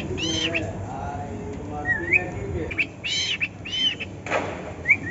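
Male cockatiel singing a repeating phrase of arched chirps and a small rising whistle over low warbling chatter. About four seconds in there is a brief rasping hiss.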